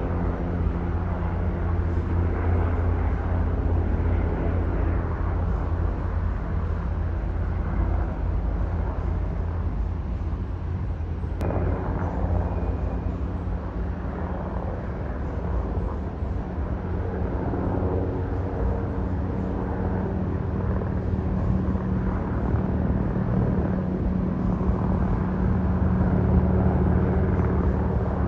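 Aircraft engine drone, steady, with a low rumble. It dips a little about ten seconds in and grows louder toward the end. A single sharp click sounds about eleven seconds in.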